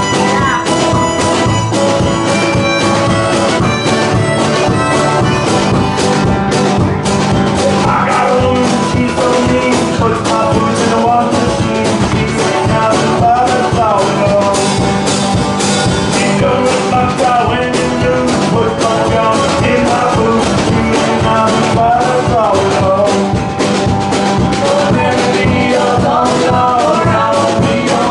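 Live acoustic band playing an upbeat number on banjo, acoustic guitar, harmonica, drum kit and upright bass, with a woman singing.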